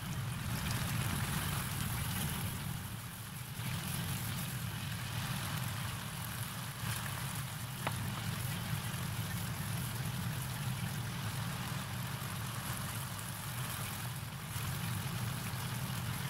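Chilli sambal bubbling and sizzling in plenty of oil in a wok, a steady rush over a low hum, with one sharp click about eight seconds in.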